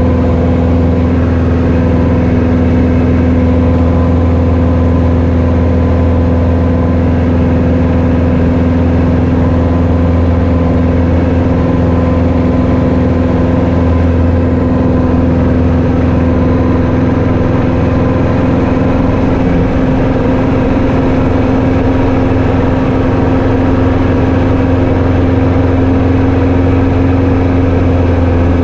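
Light training aircraft's engine and propeller droning steadily in the cockpit, a constant low hum with a steady tone over it and no change in power.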